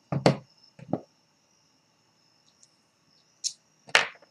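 Tools being handled on a desk: two dull knocks in the first second, then a couple of sharp clicks near the end as a plastic screwdriver-bit case is picked up.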